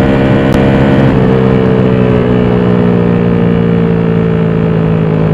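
Single-cylinder Honda XRM fi motorcycle engine, bored out to 62 mm and running a racing ECU, holding steady high revs while cruising at speed in fourth, its top gear, with a small shift in pitch about a second in. Wind rushes over the microphone throughout.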